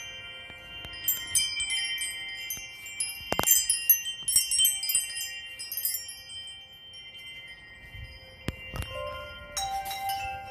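Woodstock Chimes of Mercury wind chime, silver metal tubes ringing in quick clusters of strikes with long sustained tones. It is busiest in the first half, quieter after about six seconds, and picks up again near the end, with a few sharp knocks in between.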